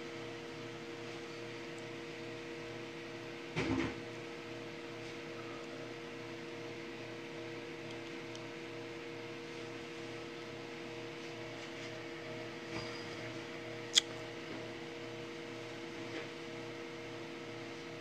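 Steady machine hum with a faint pulsing low note. A dull knock comes about four seconds in, and a sharp click, the loudest sound, about fourteen seconds in.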